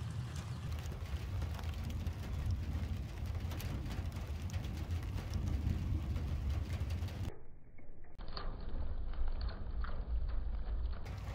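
Outdoor wind rumbling on the microphone with scattered light ticks. About seven seconds in the sound turns duller and muffled for a few seconds, then returns to the fuller rumble.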